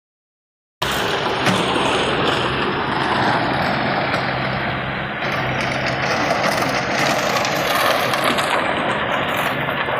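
Bobcat skid steer's engine running steadily, starting abruptly about a second in, with a constant low hum.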